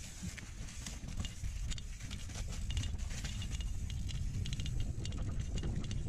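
Mountain bike rolling fast over a dirt trail littered with dry leaves: tyres crunching and crackling through the leaves and the bike clattering over bumps. Under it runs a steady low rumble of wind and trail vibration on a rider-worn camera's microphone.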